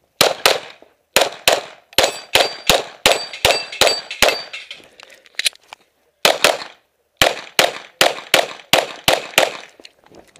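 Rapid string of 9mm Glock pistol shots, about twenty in quick pairs and short groups with brief pauses between them, as a competitor engages targets in a USPSA stage. A faint metallic ring, typical of a struck steel target, hangs over the shots from about two to four seconds in.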